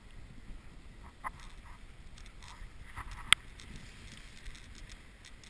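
Dogsled running along a packed snow trail: the runners scrape over the snow with a light, irregular pattering of the dogs' paws, and one sharp knock a little over three seconds in.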